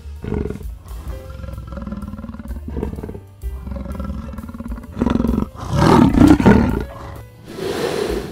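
A large animal growling and roaring in a series of rough calls, loudest around six seconds in, with a hissing exhale near the end, over background music.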